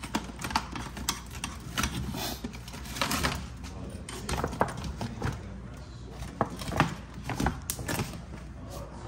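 Plastic door water shield crinkling and rustling as it is pulled away from the door's sticky butyl sealer, with irregular small clicks and scrapes.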